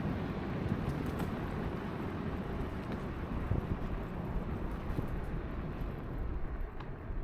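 Wind buffeting the microphone along with tyre noise from a moving electric scooter: a steady, even noise with no engine note and a few faint ticks.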